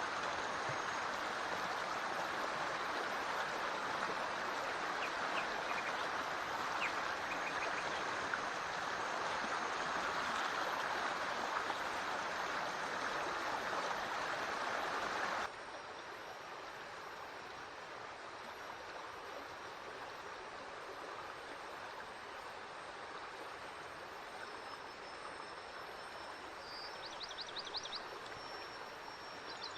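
Forest stream flowing, a continuous rush of running water that suddenly drops to a quieter level about halfway through. A faint high trill is heard near the end.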